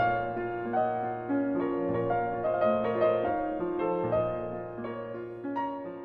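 Slow, gentle piano music: single notes and chords over held low notes, growing quieter toward the end.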